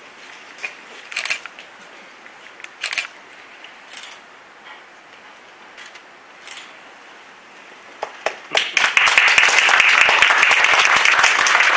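A few isolated sharp clicks in a quiet room. Then, about eight and a half seconds in, an audience breaks into applause, loud and steady.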